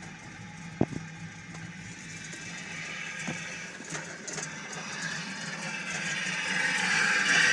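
Jeep Cherokee XJ engine idling roughly, with one sharp pop about a second in and fainter pops a few seconds later, signs of the misfire and backfiring it suffers from. A hiss builds up toward the end.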